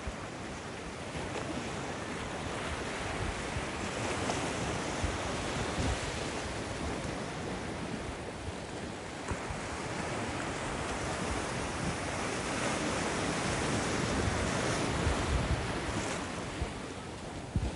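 Ocean surf washing and breaking in a steady hiss that swells and eases as the waves come in, with wind rumbling on the microphone.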